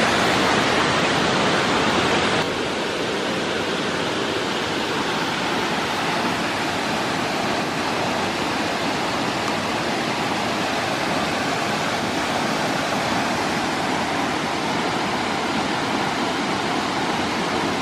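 Steady rushing of a large waterfall, a constant even wash of falling water that drops slightly in level about two and a half seconds in.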